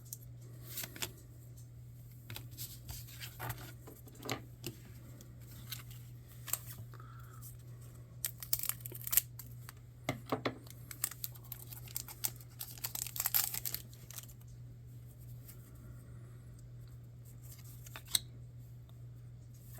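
Trading card packs being torn open and the cards handled: scattered rustling, crinkling and light ticks, busiest around eight to nine seconds and thirteen seconds in, over a steady low hum.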